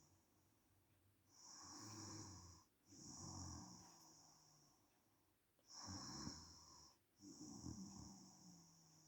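A sleeping woman snoring faintly: two slow breaths, each a rough snore in two parts with a brief break between them.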